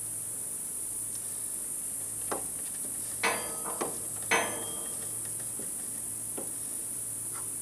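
Steady high-pitched chirring of insects, crickets or cicadas, with a few short clicks and light knocks with a brief ring around the middle.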